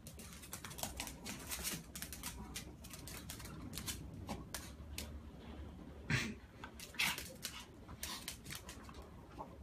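Cat and small dog scuffling on a tile floor: quick irregular clicks and scrapes of claws and paws on the tiles and the rubber toy. Two louder knocks come about six and seven seconds in.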